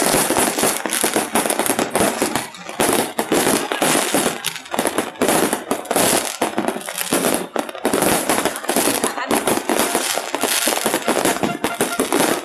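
Aerial fireworks going off in rapid, near-continuous succession: many overlapping bangs and crackles with no pause.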